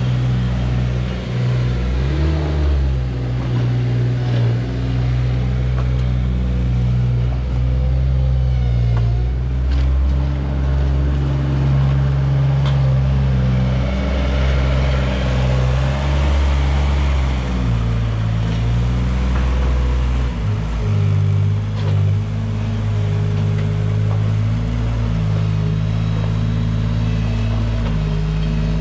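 Engine of a compact farm loader running steadily, its pitch rising and falling as it revs and works.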